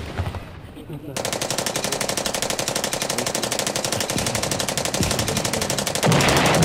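Fast automatic gunfire: a steady rattle of many shots a second starts about a second in, then turns louder and harsher near the end.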